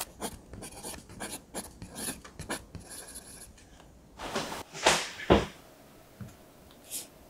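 Soft handling sounds: faint light clicks and rustles, then a louder rustle and a low thud about five seconds in, as a bunch of bananas is handled over a wooden board.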